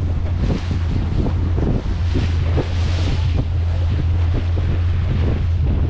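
Wind buffeting the microphone aboard a moving powerboat, over a steady low drone and the rush of water along the hull. The gusts come and go irregularly.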